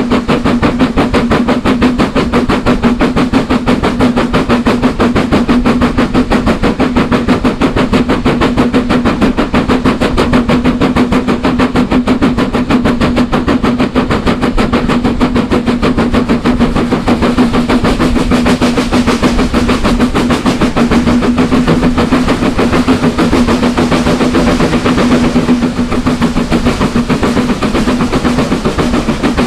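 Steam locomotive exhaust beating in a rapid, even rhythm over a steady drone as the train runs.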